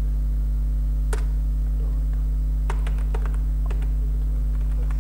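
Computer keyboard being typed on: scattered single keystrokes, one about a second in and a quick run of several around the middle, over a steady low hum.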